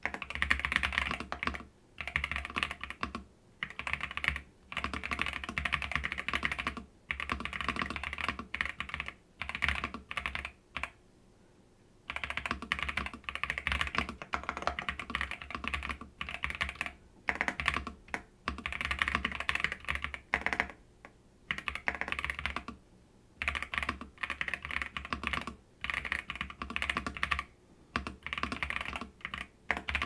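Fast typing on an RK R87 Pro mechanical keyboard with linear switches: a dense, deep-toned clacking of keystrokes in runs of a second or few, broken by short pauses, the longest about 11 seconds in.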